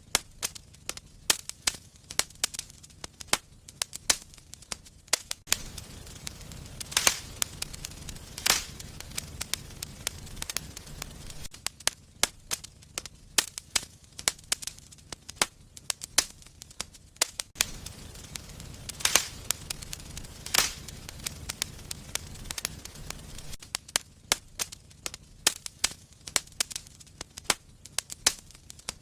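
Wood fire burning in a fireplace: many irregular sharp crackles and pops over a low steady rumble of flame, with several louder pops.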